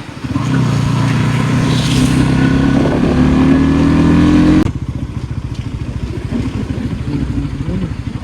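Motorcycle engine pulling with its pitch rising steadily, then cutting off abruptly about four and a half seconds in to a lower, evenly pulsing engine note.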